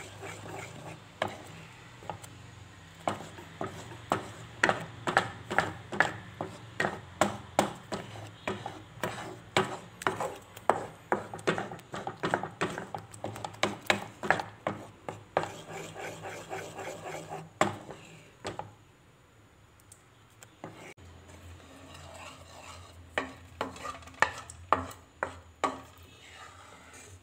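Wooden spoon stirring thick tomato sauce in a metal pan, scraping and knocking against the pan about two to three times a second. The stirring pauses for a few seconds after the middle and picks up again briefly near the end.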